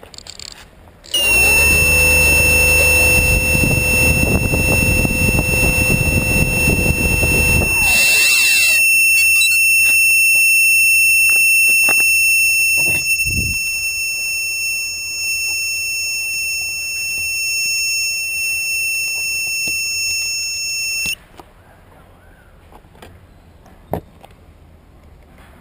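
MikroKopter quadcopter's motors and propellers spin up and run loudly, then wind down and stop after about seven seconds. A steady high-pitched tone sounds over them and carries on after they stop, cutting off suddenly about thirteen seconds later.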